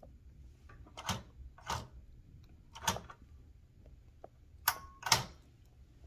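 1976 Smith Corona Super-G manual typewriter's mechanism worked by hand: five sharp clacks spaced irregularly about a second apart. One clack near the end carries a short metallic ring.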